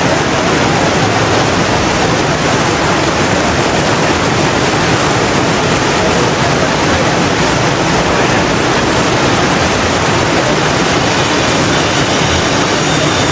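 Loud, steady rushing of a fast mountain river, white water pouring over boulders.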